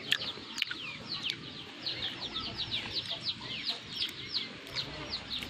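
Chickens peeping: many short, high, falling peeps overlapping, several a second throughout.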